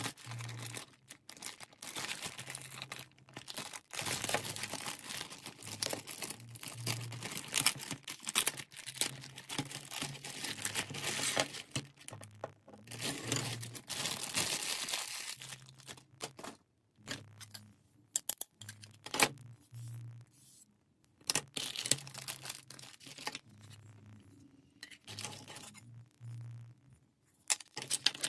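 Clear plastic packaging crinkling and tearing as the laser-cut plywood parts of a ukulele kit are pulled out of the bag, in dense rustling stretches. Later come sharper clicks and light clatter as the thin wooden pieces are handled and laid down on the table.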